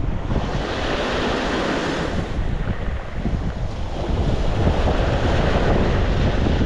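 Sea waves breaking and washing onto the shore, a wave's hissing wash swelling about half a second in and easing off after two seconds. Wind buffets the microphone with a low rumble throughout.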